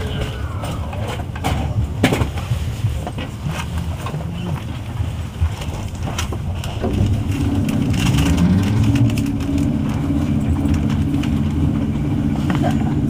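Electric multiple-unit train pulling out of a station, heard from inside the car: a running rumble with a few sharp clunks from the wheels and rails. About seven seconds in, a rising traction-motor whine sets in as the train picks up speed, then levels off into a steady hum.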